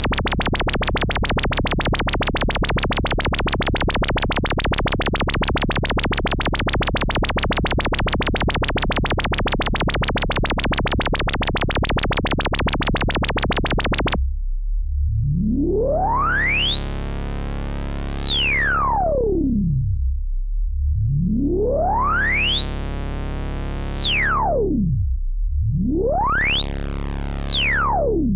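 Moog Minitaur analog bass synthesizer sounding a steady low bass note, chopped for the first half into a rapid buzzing pulse by very fast modulation. About halfway through, the pulsing stops and a high resonant tone sweeps up and down over the bass three times, each sweep quicker than the last.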